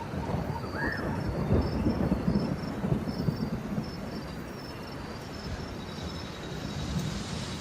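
Thunder rumbling over steady rain, loudest in the first three seconds. Short high chirps from jungle animals repeat through it, with one brief rising-and-falling call about a second in.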